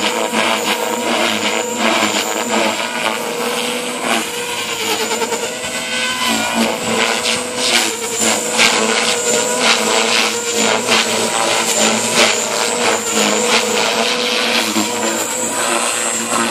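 JR Forza 450 radio-controlled helicopter in flight, its main rotor and drive running with a steady whine and a high tone, the sound wavering as it manoeuvres on a ±10° collective pitch setup.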